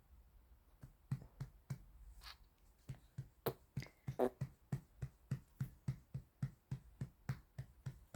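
Soft rhythmic patting, about three light pats a second, starting a little under a second in. A brief small vocal sound from the baby about four seconds in.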